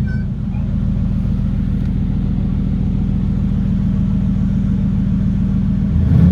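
2016 Mercedes-AMG GT S twin-turbo V8, fitted with a custom exhaust and ECU remap, idling steadily with a deep rumble. Near the end a rev begins and rises in pitch.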